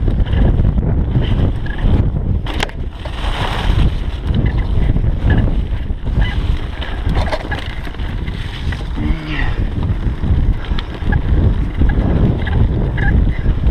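Mountain bike descending a dirt trail at speed: heavy wind buffeting on the microphone over the rumble of tyres on dirt and dry leaves and the rattle of the bike, with a sharp knock about two and a half seconds in.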